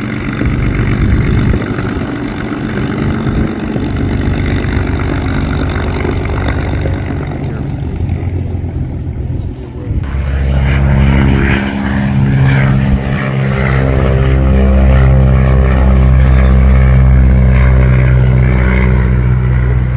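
Piston-engine propeller aircraft running. About ten seconds in, the sound changes abruptly to a steady, deep, pitched engine drone that grows louder.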